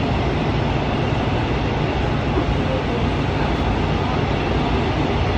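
Gwangju Metro Line 1 subway train running, heard from inside the passenger car: a steady rumble of wheels and drive equipment.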